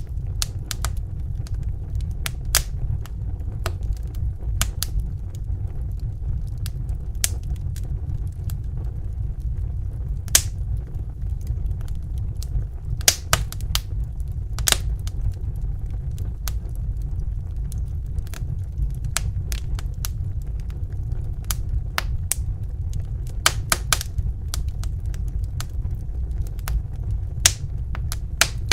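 Wood fire in a fireplace crackling, with irregular sharp pops and snaps over a steady low rumble of burning. A few pops stand out louder.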